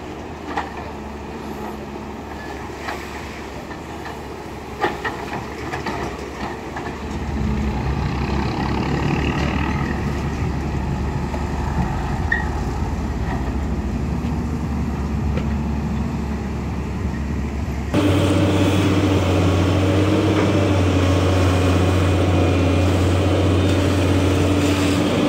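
CAT 320 hydraulic excavator's diesel engine running as it digs, working harder and louder about seven seconds in, with a few sharp knocks from the bucket. Near the end the sound cuts abruptly to a louder, steady engine drone.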